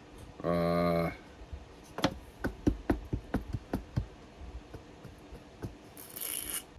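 Light clicks and knocks of small objects being handled on a model-building workbench, irregular, two or three a second. They follow a short steady buzzy tone about half a second in, and a brief hiss comes near the end.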